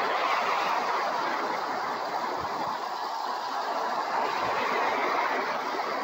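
Small waves washing over choppy open water and a sandbar shore: a steady rushing hiss that swells and eases gently.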